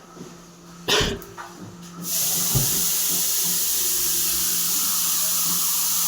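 Water spraying hard from a newly plumbed outlet as it is test-run: a steady hiss that starts suddenly about two seconds in, after a loud clack about a second in.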